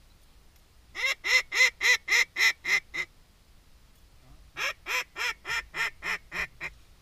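A duck call blown in two runs of about eight evenly spaced quacks. The first run is louder and the second softer, and each trails off at the end.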